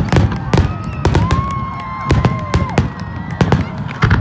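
Fireworks display: aerial shells bursting in rapid succession, many sharp bangs close together. Over the bangs a held high tone rises in, holds for about a second and a half from about a second in, then falls away.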